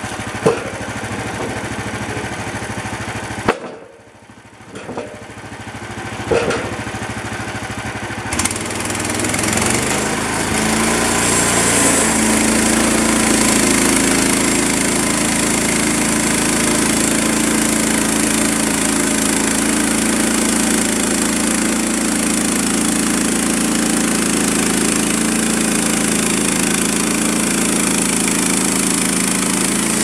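A portable bandsaw mill's small gasoline engine running, with a few sharp knocks in the first seconds and a brief quieter dip about four seconds in. From about ten seconds in it runs louder and steady as the band blade is pushed through a cedar log.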